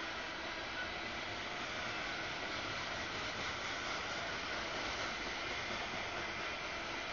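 Freight train of open-top gondola cars rolling past: a steady noise of wheels on rail.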